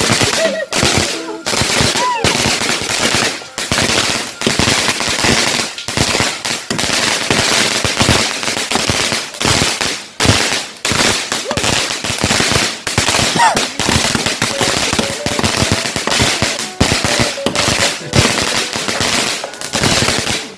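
A long run of firecrackers going off in rapid, irregular bangs with only brief gaps, stopping suddenly at the end.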